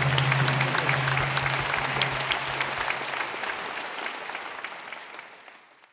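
Concert audience applauding, the clapping fading out near the end.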